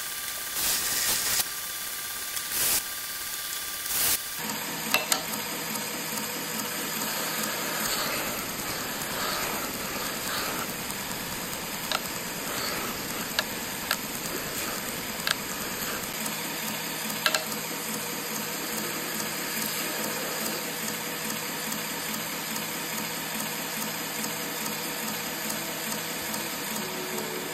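Knife-making belt grinder running with a steady hiss as a handle scale is ground against the belt. A few sharp clicks come through along the way.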